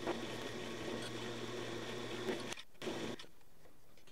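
Drill press electric motor running with a steady hum. About two and a half seconds in, the hum breaks off, then comes back quieter and without its low tone.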